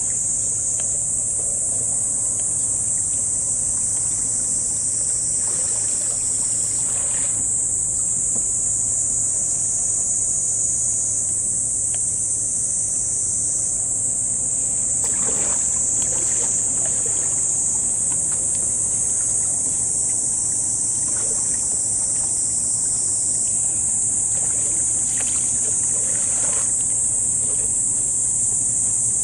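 Steady high-pitched buzzing of an insect chorus running without a break, over a faint low hum, with a few brief soft sounds here and there.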